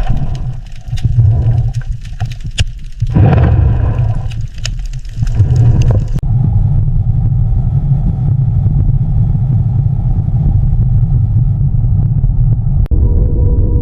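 A deep, steady low rumble, broken during the first six seconds by crackling pops and short noisy bursts, then running evenly with one sharp click near the end.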